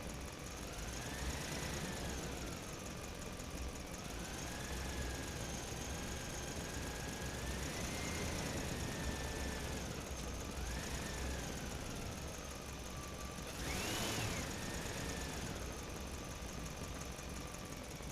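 Engine sound effect of an animated construction vehicle, running steadily with its pitch rising and falling every couple of seconds, and one higher rev about fourteen seconds in.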